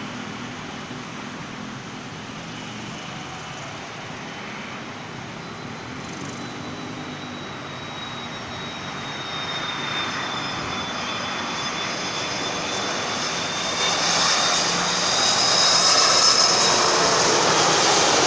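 Airbus A330-202 jet airliner on approach to land, its turbofan engines making a rushing noise with a thin high whine. The sound grows louder over the second half as the aircraft nears.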